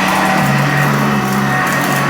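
Sanitaire upright vacuum cleaner running on carpet: a steady motor and brush-roll drone whose low hum shifts slightly in pitch as it is pushed and pulled.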